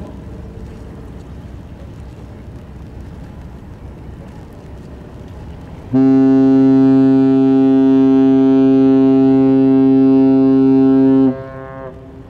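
Ship's horn sounding one long, loud blast of about five seconds, a low steady note rich in overtones, which stops abruptly and echoes briefly. Before it, a low steady rumble of wind and engines.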